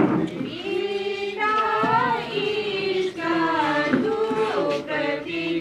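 Female voices singing together in long held notes that slide between pitches.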